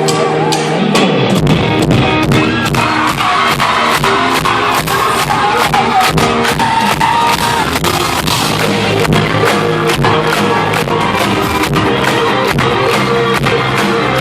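Band music with a steady drum beat: held chord tones open it, then bass and drums come in about a second in.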